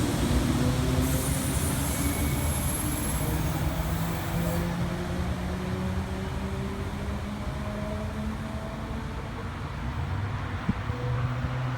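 Electric passenger train pulling away from the platform, its traction motors giving a whine that slowly rises in pitch as it gathers speed, over a steady rumble that gradually fades. A high hiss is heard for the first few seconds.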